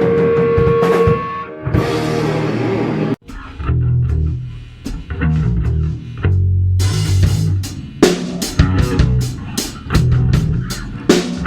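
Heavy metal band playing: electric guitar, bass guitar and drum kit. A held chord dies away, the music breaks off about three seconds in, then a chugging low riff starts, with drums and cymbals crashing in about seven seconds in.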